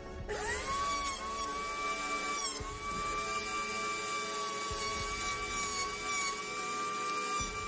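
Small pen-style rotary tool spinning up quickly to a steady high whine while drilling a hole through a plastic model hull. Its pitch dips briefly under load about two and a half seconds in, with scratchy grinding from the bit biting the plastic.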